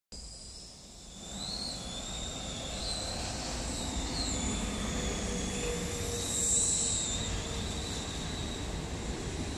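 Electric air blower running steadily, keeping an inflatable inflated: a rushing hum with a high, slightly wavering whine, louder from about a second in.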